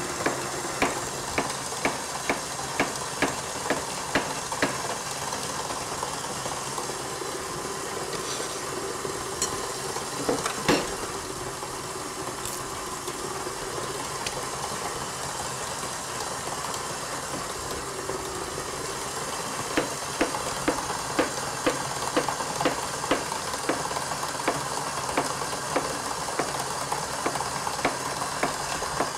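Electric stand mixer running steadily as it beats cream cheese with instant pudding mix. Over it, a knife taps a plastic cutting board about twice a second as bananas are sliced. The tapping stops for the middle stretch and starts again about twenty seconds in.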